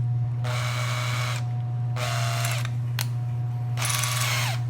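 Electric drill with a 3/8 inch bit run in three short bursts, its motor whine winding down in pitch after the last one.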